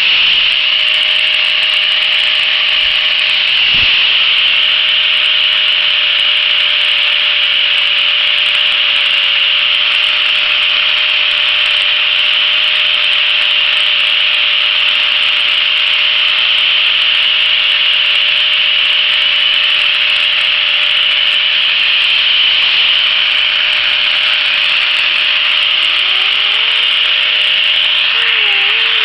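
Electric angle grinder with a sanding disc running continuously while grinding and shaping a purpleheart wood handle: a steady motor whine under a loud, even hiss of abrasive on wood.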